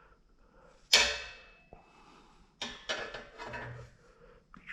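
Metal parts being handled during an exhaust install. A sharp metallic clank about a second in rings briefly, then lighter clatter and clicks follow.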